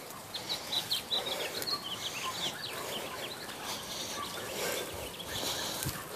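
Small birds chirping, a quick run of short calls crowded into the first two and a half seconds, over a steady outdoor background hiss.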